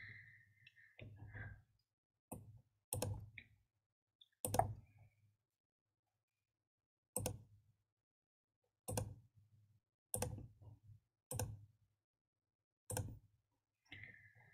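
Computer mouse clicks, about a dozen single clicks at irregular intervals, each with a faint low thud, as windows in a chip-design program are closed and switched.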